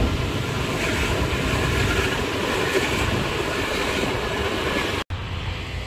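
Steady low rumble and hiss of outdoor noise, with a brief cut in the sound about five seconds in.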